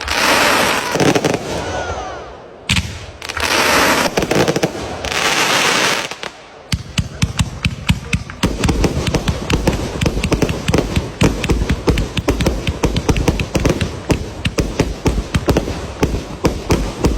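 Fireworks going off: two spells of loud hissing, crackling noise in the first six seconds, then from about six seconds in a long rapid run of sharp cracks and bangs, many a second.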